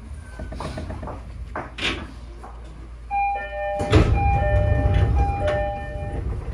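An electronic chime plays a short melody of steady beeping tones, starting about three seconds in. Beneath it a low train rumble swells about a second later. Scattered clicks and knocks come before the chime.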